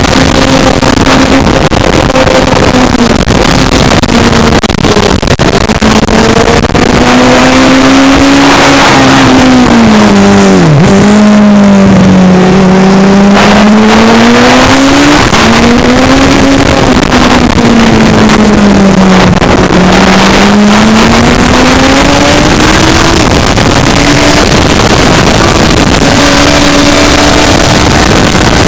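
Racing sidecar's engine running hard, the pitch falling under braking to a low point about eleven seconds in, then climbing again as it accelerates out of the corner, with a second dip and rise near twenty seconds. Heavy wind noise on the onboard microphone.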